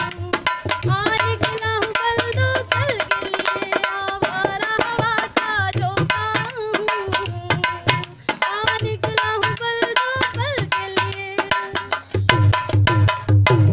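Dholak, a two-headed barrel hand drum, played fast with the hands, with deep bass-head strokes under sharp slaps. A wavering melody runs over the drumming. Both stop suddenly at the end.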